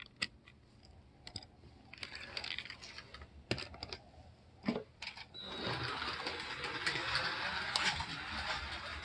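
A Carrera digital slot car being handled, with a few clicks and knocks as its polarity switch is flipped and it is set into the track slot. Then, about five seconds in, its small electric motor starts whirring steadily as the car runs around the track, now that the switch is flipped.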